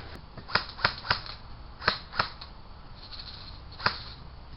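Airsoft guns firing single shots: about six sharp snaps at irregular intervals, two close pairs in the first two and a half seconds and one last shot near the end.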